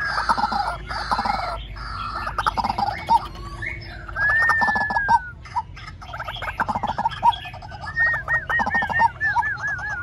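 White-breasted waterhen calling, a calling bird used as a trapping lure: a busy string of clucking and croaking notes, with one long falling note about four seconds in and a fast run of repeated rise-and-fall notes, about five a second, near the end.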